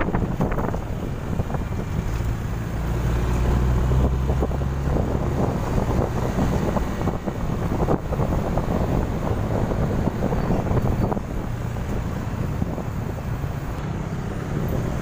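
Wind buffeting the microphone of a moving motorcycle, over the low steady drone of its engine.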